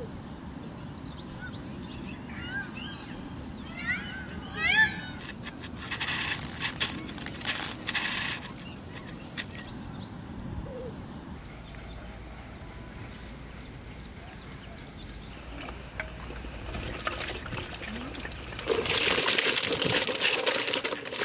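Outdoor background with a few bird chirps in the first five seconds, then, in the last two to three seconds, loud splashing as cauliflower florets are tipped into a large pot of water.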